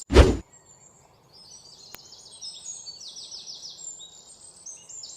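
Small birds chirping repeatedly in short high calls, as an outdoor ambience. It opens with a short, loud burst of noise.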